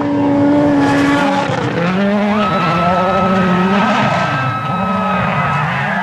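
Turbocharged four-cylinder World Rally Car engine at high revs on a gravel stage. The pitch holds high for about a second and a half, then drops and swings up and down several times as the driver lifts off and gets back on the throttle. Tyres scrabble and hiss on the loose gravel beneath it.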